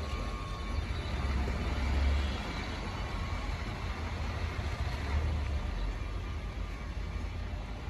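CP electric multiple unit train rolling slowly past on the adjacent track: a steady low rumble of wheels and running gear with a hiss of noise over it, swelling twice.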